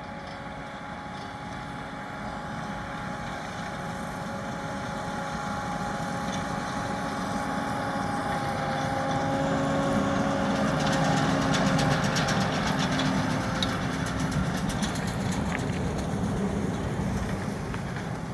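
New Holland T7 245 tractor running steadily while pulling a round baler through straw. It grows louder to a peak about two-thirds of the way in and then fades as it passes. A rapid clicking rattle from the working machinery comes in while it is closest.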